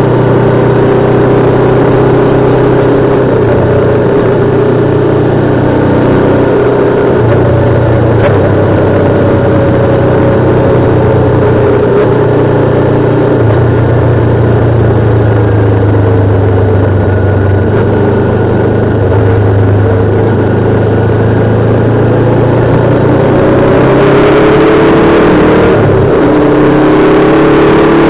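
Motorcycle engine running under way on a road circuit. The engine note holds fairly steady with a few small shifts in pitch, sags slightly through the middle, then rises near the end as the bike accelerates.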